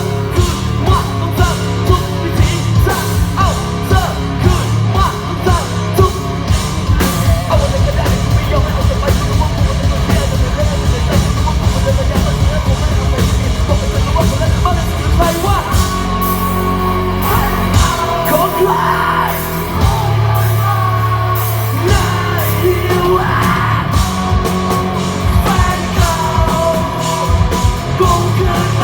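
Loud music with yelled and sung vocals over a fast, driving drum beat and heavy bass; the beat thins out briefly about two-thirds of the way through.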